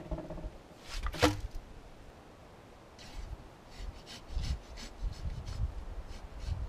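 A hand tool knocks once against the steel drum of a cement mixer about a second in, with a short metallic ring. From about three seconds on come scraping and rubbing strokes with dull thuds as wet concrete is worked by hand.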